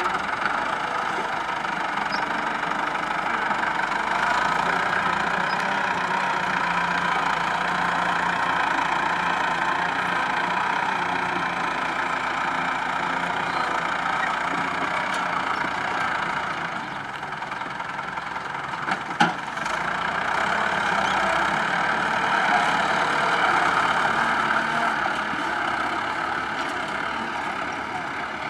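Engine of a tractor-based sugarcane grab loader running steadily as the loader drives across the field, with one sharp knock about two-thirds of the way through.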